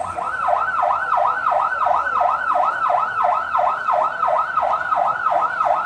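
Police patrol car's electronic siren sounding a fast yelp: the pitch sweeps up and down about three and a half times a second.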